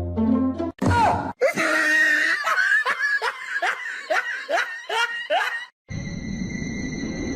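A voice laughing in rapid, rhythmic pitched bursts, about two a second, after a moment of music. A steady high tone over a hiss comes in about six seconds in.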